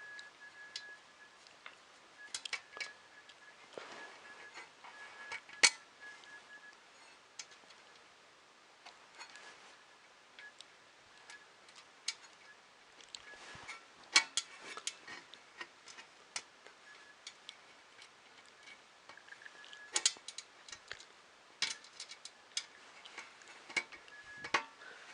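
Irregular small clicks and taps of hands handling and fitting small 3D-printer kit parts, with a faint high tone coming and going.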